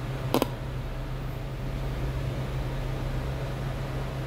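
Steady low hum with an even hiss from background machinery, and one short, sharp click about half a second in.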